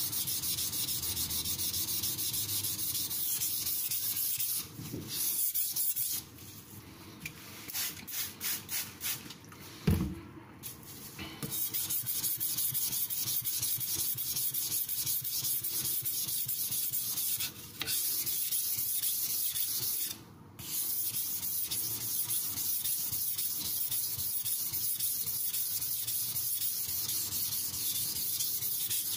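Carbon-steel (Shirogami) nakiri blade scraping back and forth over a soaked synthetic water stone with slurry on it, in quick continuous strokes. The steady scraping drops about six seconds in to a few separate strokes and a single knock near ten seconds, then resumes, with two brief stops later on.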